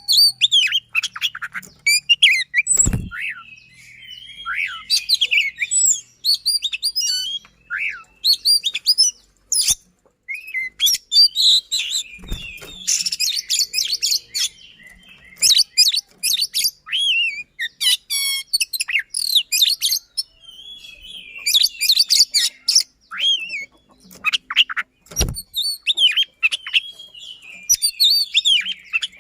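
Oriental magpie-robin (kacer) singing a fast, dense song of rapid whistles and chattering trills with sharp high notes, hardly pausing. A few dull knocks come through at about 3, 12 and 25 seconds in.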